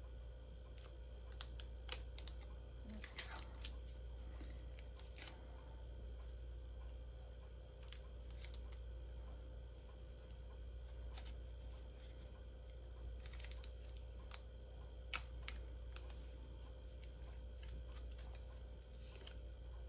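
Paper and cardstock being handled by hand: soft rustles and scattered light clicks and ticks, the sharpest a few seconds in, over a faint steady low hum.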